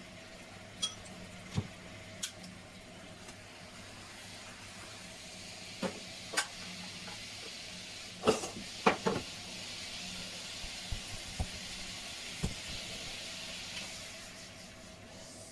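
Pan juices sizzling in a frying pan on the hob, swelling about four seconds in and dying away near the end, with sharp clinks and knocks of metal tongs against the pan and a ceramic baking dish as a whole chicken is lifted across.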